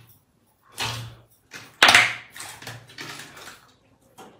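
Hands pressing into and pulling a large mass of glossy clear slime in a plastic tub: a run of squelches, the loudest about two seconds in.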